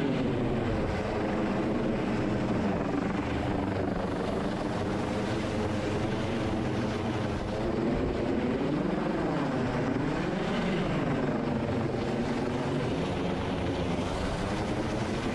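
MH-65 Dolphin helicopter running: a steady, loud rotor and turbine noise with a stack of steady tones that waver up and down in pitch for a few seconds past the middle.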